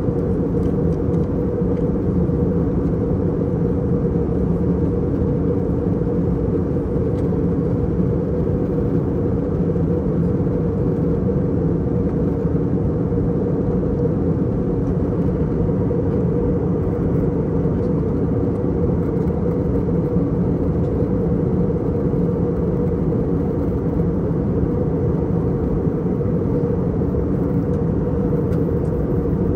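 Steady in-flight cabin noise of an Airbus A321 airliner: a constant low rumble and rush of air with a few steady humming tones from the engines and airflow, unchanging throughout.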